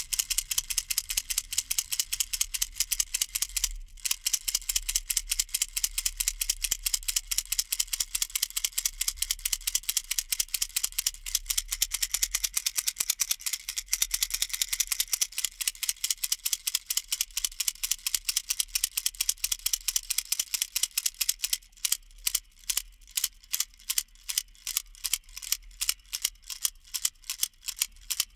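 Baby rattle shaken rapidly, giving a dense stream of high, crisp clicking from its beads. Near the end the shaking slows to separate shakes, a few a second.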